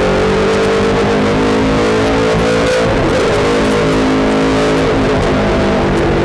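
Late-model stock car's V8 engine at high revs, heard from inside the cockpit, with a steady buzzing note. Its pitch wavers and shifts about halfway through as the car comes off the straight into the turn.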